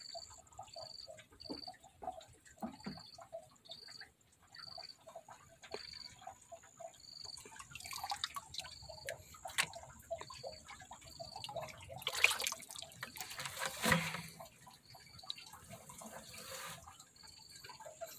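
Pond water splashing and dripping as a bucket of koi fry is tipped and lifted out of the pond, with a louder burst of splashing about twelve to fourteen seconds in. A steady series of short high chirps runs behind it.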